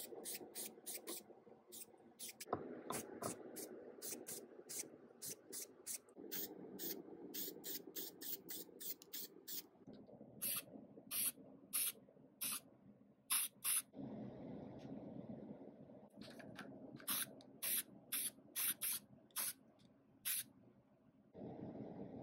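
Aerosol spray-paint can sprayed onto metal parts in many short hissing bursts, several in quick succession, then a pause, then another run. A steady low hum runs underneath.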